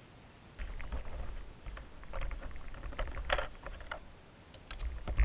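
Water sloshing and lapping right against the microphone: irregular small clicks and splashy crackles over a low rumble, with the loudest splash a little past the middle.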